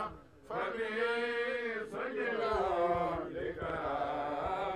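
Men chanting an Arabic devotional poem in praise of the Prophet Muhammad, in long, wavering held notes; the chant breaks off for a moment at the start, then carries on.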